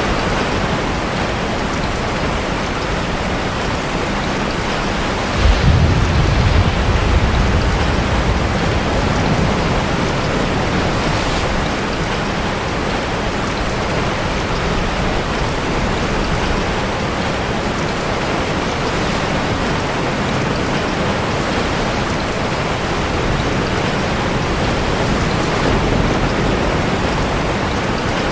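Steady heavy rain mixed with the wash of sea surf. About five seconds in, a sudden deep rumble swells and fades over a few seconds.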